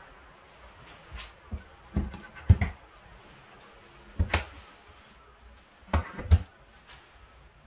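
Handleless kitchen wall-cabinet doors pressed by hand and knocking shut, giving short wooden knocks and clicks in pairs, three pairs about two seconds apart.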